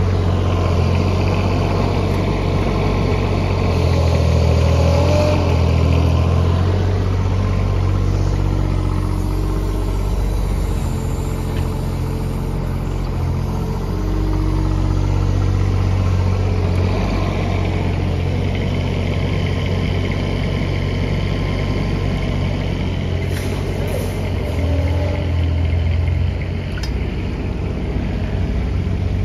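Diesel engines running steadily, from a Doosan DX19 mini excavator and an Iveco Daily truck working close by.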